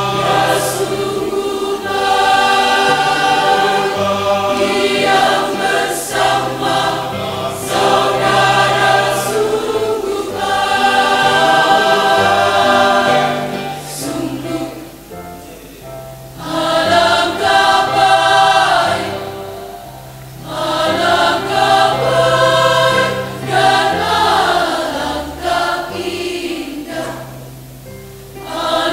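Church choir of mostly women's voices singing an Indonesian hymn in sustained phrases, with short breaths between phrases.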